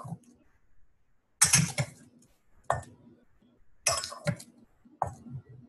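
Kitchenware clinking and clattering in four short knocks about a second apart: a measuring cup and glass bowl being handled while flour is scooped and measured.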